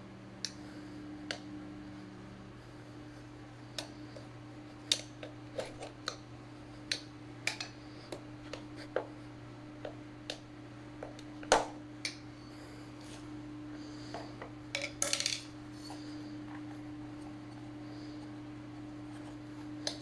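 Metal tire iron clinking, knocking and scraping against the metal rim of a Xiaomi M365 scooter wheel as a tire is levered onto it. The clicks and knocks are irregular, with a sharper clank about eleven and a half seconds in and a short rattle around fifteen seconds.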